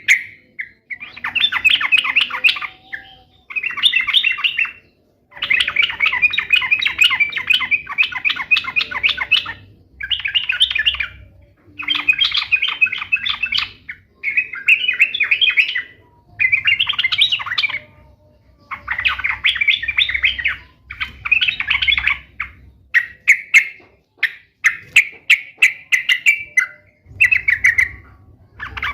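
Yellow-vented bulbul (trucukan) singing energetically: bursts of rapid, chattering notes lasting a second or two each, repeated with short pauses between them.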